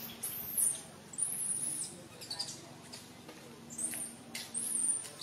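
Baby macaque screaming for its mother: a string of shrill, high-pitched squeals, about half a second each, several in a row.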